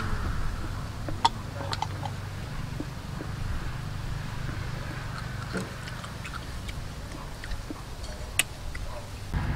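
Steamed snail shells clicking as they are handled and picked at with a small stick, a few sharp clicks spread out, the loudest near the end. A steady low hum runs underneath.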